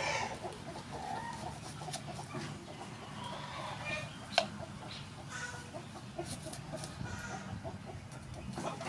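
Chickens clucking now and then in the background, over knife strokes slicing through a red onion and tapping a wooden chopping board, with one sharp knock about four seconds in.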